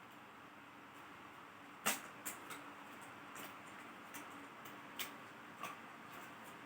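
Scattered sharp, light clicks and taps from handling laptop parts and small tools during a laptop teardown. About seven in all, the loudest about two seconds in, over a faint steady hiss.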